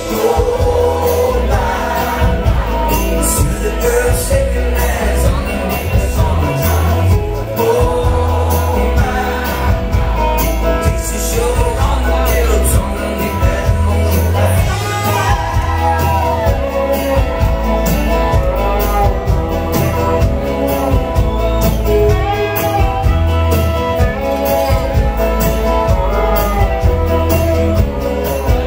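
Live country band playing a song with lead and backing vocals, acoustic and electric guitars, fiddle and drums keeping a steady beat, with heavy booming bass.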